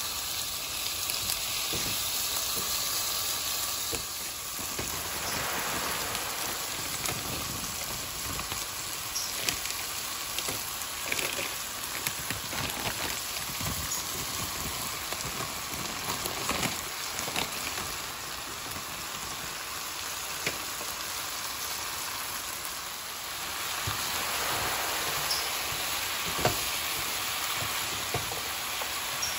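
Onions, tomatoes and spices frying in hot oil in a pan, with a steady sizzle. Frozen cut okra goes into the pan partway through. Scattered taps and scrapes come from a silicone spatula stirring.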